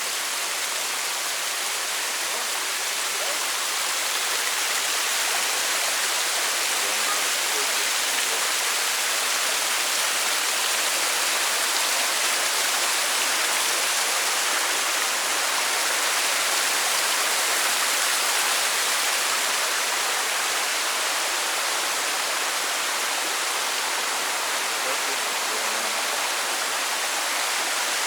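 Steady rush of falling water from a small waterfall on a mountain stream, an even hiss with no breaks.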